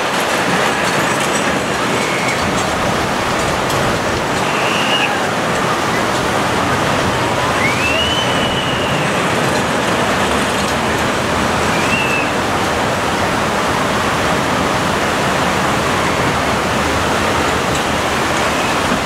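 L&T Systems compact steel roller coaster with mine-train-styled cars running its circuit: a steady rushing rumble from the train on the track. A few short high squeals rise and fall over it.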